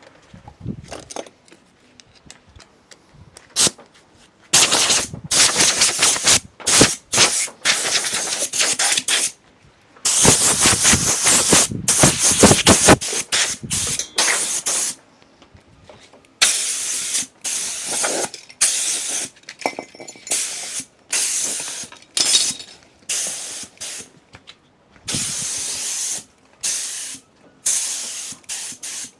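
Repeated bursts of pressurised spray hissing, a few short ones at first, then longer bursts of one to three seconds with short gaps, the longest about ten seconds in.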